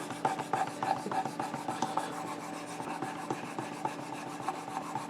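Knife blade being stroked against the abrasive stone of a Worksharp Precision Adjust sharpener: a steady scraping rasp of rapid, repeated strokes as the edge is ground back to sharpness at 17 degrees per side.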